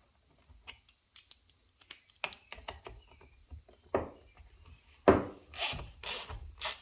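A Torx driver turning the T25 screw that holds the plastic air-filter cover on a Stihl FS 56 RC trimmer. There are scattered light clicks, then from about five seconds in a few louder rasping strokes about half a second apart.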